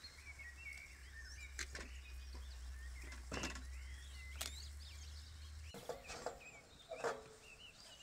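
Songbirds chirping and singing, with several sharp clinks and knocks of metal tongs and cookware at a camp stove.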